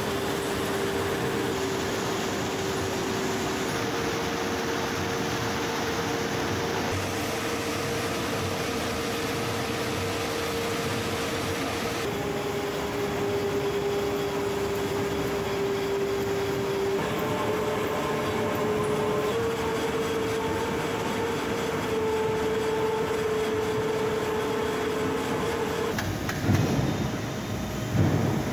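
Steel coil slitting line running: steady machine noise with a constant motor whine whose pitch steps slightly a few times. Near the end the noise changes and two heavy clunks stand out.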